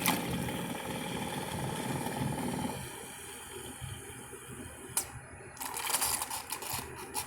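Single-serve pod coffee machine brewing, its pump running as coffee dispenses, then stopping about three seconds in as the brew cycle ends. A few short clicks and knocks follow.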